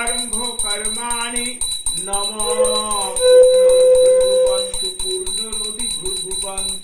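A bell rung rapidly and continuously, its high ringing pulsing evenly, under a melodic line of devotional singing that holds one long note midway.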